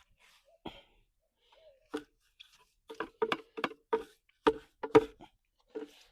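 A hand tool knocking and scraping on a hard surface in irregular strikes: a few single knocks, then a quick flurry of about ten in two seconds near the end.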